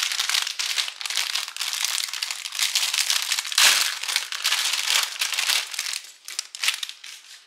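Thin clear plastic bag crinkling and crackling as hands pull a plastic model-kit runner out of it. The crinkling is dense and continuous at first, then thins to a few separate crackles and fades near the end.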